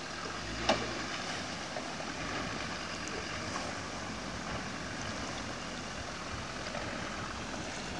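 Steady rush and splash of river water around a Land Rover Defender wading slowly through the shallows, its Td5 five-cylinder turbodiesel running low underneath. A single sharp knock under a second in.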